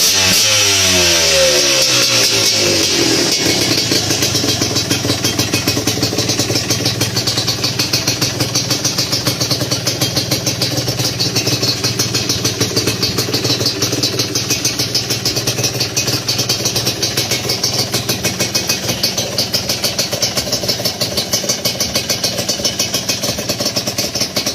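Yamaha DT125 two-stroke single-cylinder engine with a stainless exhaust pipe. Its revs drop from a blip back to idle in the first few seconds, and it then idles steadily with an even pulsing beat.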